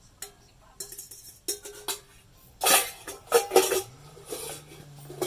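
Metal cookware clinking: a run of sharp knocks and clinks of utensils against a pot, loudest in the middle. A low steady hum starts about four seconds in.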